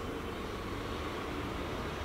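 Steady background noise with no distinct sounds: room tone.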